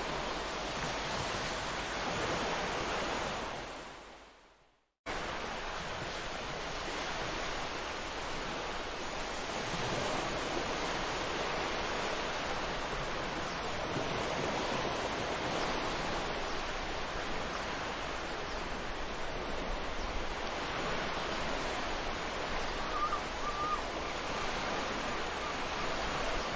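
Ocean surf washing on a beach, a steady rush of breaking waves that fades out to silence about four seconds in and cuts back in abruptly a second later, as at an edit in the recording. A short bird call sounds faintly near the end.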